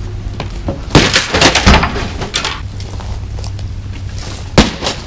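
Pickaxe smashing into a computer monitor twice, about a second in and again near the end. The first blow is followed by a short crunch of cracking plastic and breaking screen.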